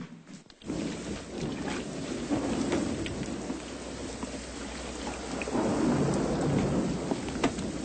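Heavy rain pouring down with thunder rumbling, cutting in abruptly about half a second in. The rumble swells twice, and scattered sharp drop-like ticks sit over the steady rain.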